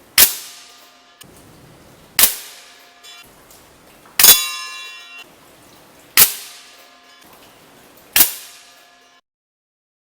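Hatsan AT44 .177 PCP air rifle firing five shots about two seconds apart, each a sharp crack with a short fading tail. The third shot rings on longer with a metallic tone.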